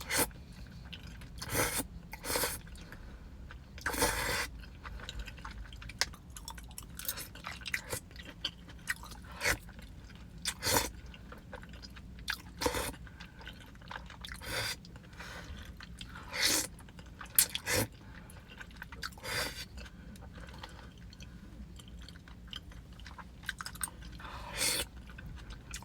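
Close-miked chewing of creamy carbonara pasta, the mouth noises coming in short irregular bursts every second or two.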